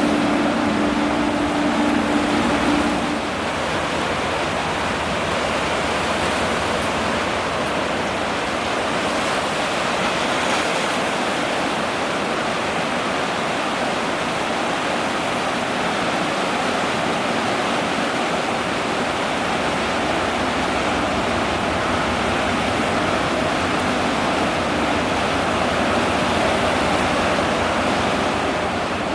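Steady rushing of wind and waves at the shore, with a low ship's engine drone that fades out about three seconds in.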